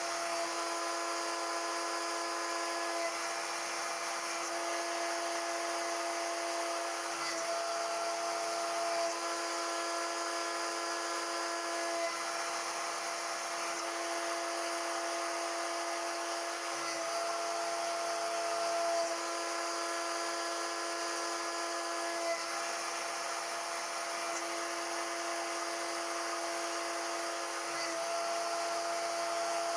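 CNC-Step High-Z S-720/T CNC router's spindle running with a small end mill cutting a 1 mm deep pocket into a metal motor-carrier plate under coolant spray. A steady whine and hiss, with the pitch of the whine stepping every few seconds.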